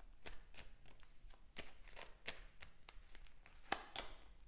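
Tarot cards being shuffled and handled over a table: soft, irregular snaps and taps of card stock, a few a second, with the sharpest tap near the end.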